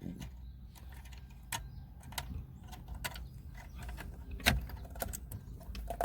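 Scattered small clicks and rattles of a plastic wiring connector and cables being handled and fitted into the back of a car stereo, over a low steady hum.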